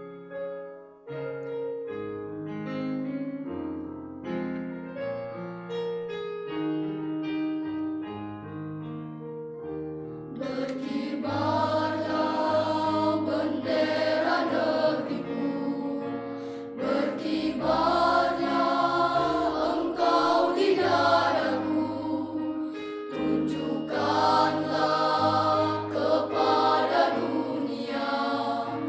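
A piano accompaniment plays an introduction alone. About ten seconds in, a children's choir comes in and sings with it, noticeably louder, pausing briefly between phrases.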